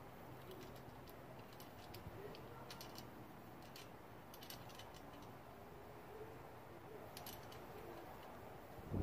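Faint, scattered small clicks of steel hardware as nuts and bolts are fitted and tightened on a steel treestand frame.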